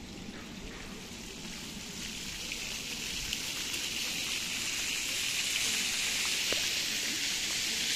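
Steady hiss of running water, growing louder from about two seconds in.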